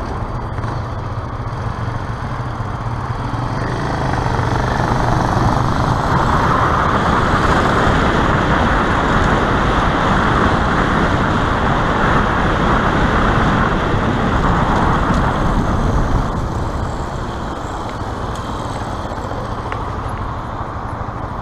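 Wind rushing over a helmet-mounted camera on a moving electric bicycle, mixed with road and traffic noise. It grows louder about four seconds in and eases back near the end as the bike slows.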